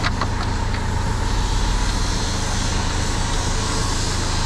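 Steady low mechanical hum of workshop machinery, with a few light clicks about a quarter of a second in.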